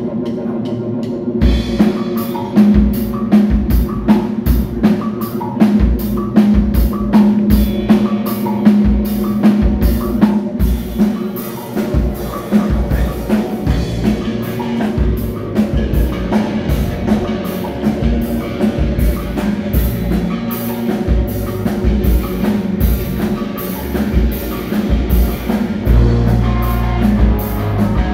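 Live rock band: a held low note droning, with the drum kit coming in about a second and a half in and keeping a steady beat of drum and cymbal hits.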